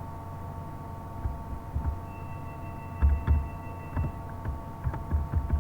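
Irregular keyboard keystrokes, dull thumps with light clicks, starting about a second in, over a steady electrical hum made of several fixed tones.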